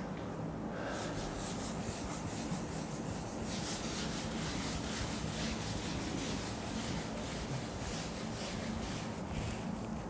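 Rapid scratchy strokes of a pen or marker rubbing across a writing surface, many to the second, over a steady low electrical hum.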